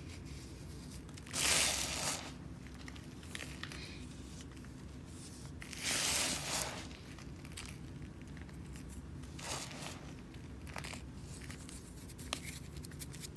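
Dry, crunchy sand crumbled and poured by hand onto a mound. There are two loud, gritty crunching rushes, about a second and a half in and about six seconds in, and smaller crumbles later on.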